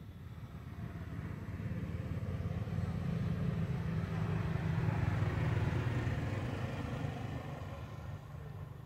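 A motor vehicle passing by: engine and road noise grow louder to a peak about five seconds in, then fade away.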